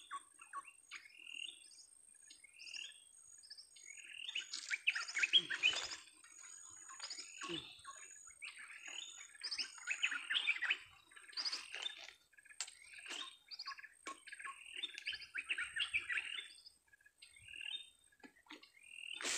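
Wild birds chirping and calling in runs of short, quick notes, busiest in two flurries a few seconds apart, over a thin, high, steady tone.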